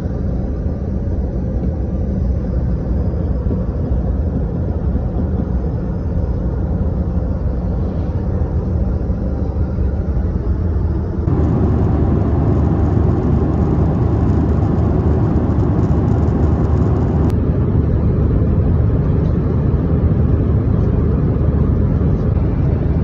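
Steady rumble and rush of a Boeing 737-800's cabin in flight. It jumps abruptly louder about eleven seconds in and shifts again about six seconds later.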